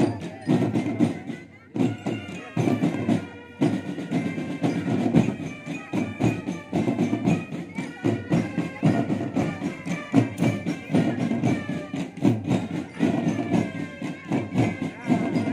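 Military marching drum band playing: many snare and bass drums beating a steady, fast rhythm together, with a tune carried over the drums.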